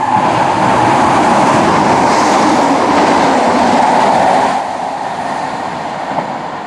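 ScotRail Class 170 Turbostar diesel multiple unit running along the platform, its engines and wheels on the rails loud for about four and a half seconds, then easing off as it draws away.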